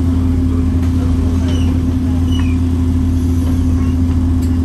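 Bus running along the road, heard from inside the passenger cabin: a steady low drone with a constant hum over road noise.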